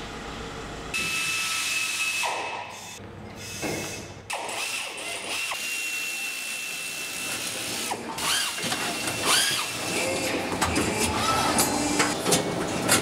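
Factory machinery running with a steady high whine, joined by clicks and knocks that grow busier in the second half.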